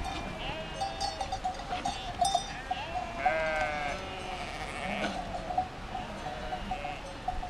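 A large flock of sheep bleating, many calls overlapping into a continuous chorus, with one higher, louder bleat a little after three seconds in.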